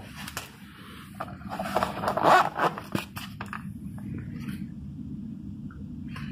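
Zipper on a frame bag being pulled open in a series of short, rough zips, loudest about two seconds in.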